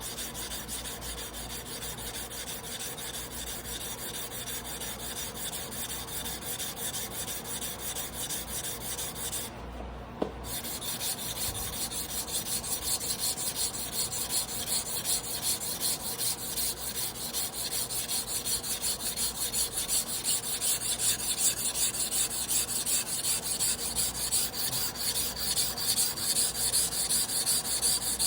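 Hayate Yoshihiro Damascus carbon-steel sashimi knife being hand-ground on a whetstone, with fast, even back-and-forth scraping strokes. There is a brief pause with a small click about ten seconds in, and the strokes get louder after it.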